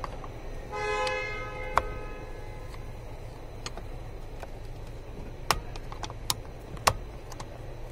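A car horn sounds once for under two seconds, two tones together. Sharp clicks follow from a screwdriver prying at the steering-wheel airbag's retaining clip.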